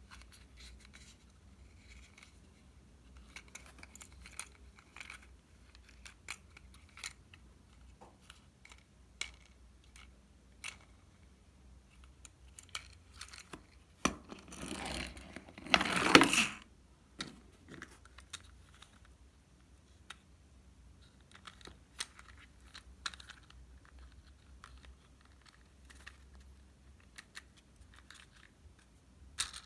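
Small plastic toy helicopters being handled: scattered light clicks and taps of plastic on plastic and on a hard tabletop. About halfway through, a louder rasping noise of about two and a half seconds as the red helicopter is run along the table on its wheels.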